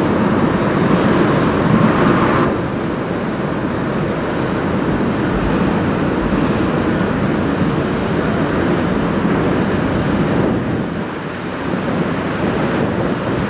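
Steady rumbling rush of the 222 m Great Lakes bulk freighter Spruceglen passing close by, its hull pushing through the water; it eases a little after about two seconds.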